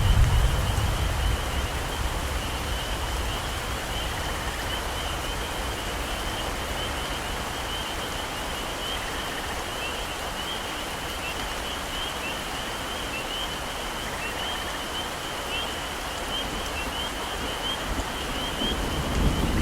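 Steady heavy rain with a constant high-pitched chorus of calling animals running through it. A low thunder rumble dies away over the first couple of seconds, and another starts to build near the end.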